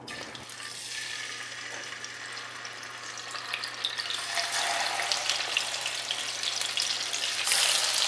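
Walleye fillets sizzling in hot oil in a frying pan as they are laid in. The sizzle builds and flares louder near the end.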